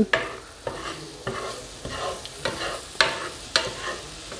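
A spatula scraping and pushing diced red pepper and onion across a non-stick frying pan, in short strokes about every half second, over the light sizzle of the vegetables frying.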